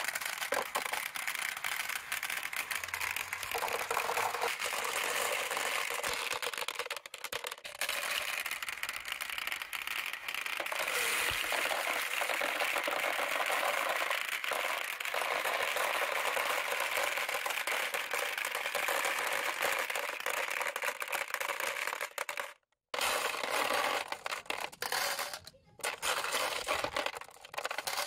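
Water running and splashing down the clear plastic spiral chutes of a toy water marble run, with glass marbles clicking and rattling against the plastic as they roll. The sound cuts out briefly twice near the end.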